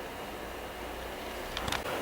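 Quiet room tone with a couple of light clicks about three-quarters of the way through, from a box of chocolates being handled.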